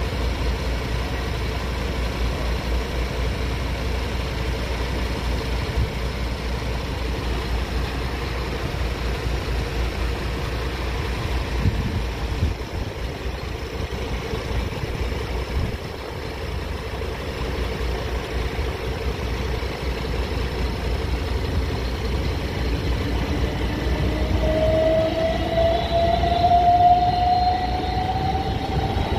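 Southern Class 377 electric multiple unit rolling across the level crossing, its traction motors giving a whine that climbs steadily in pitch over the last few seconds as the train gathers speed. Underneath is a steady low rumble.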